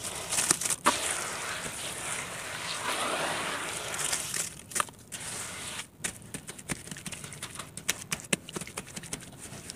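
Hands squeezing and kneading wet, gritty red dirt paste: a dense wet squishing and crumbling for the first half, then sparser sharp wet pops and crackles as the paste is pressed flat.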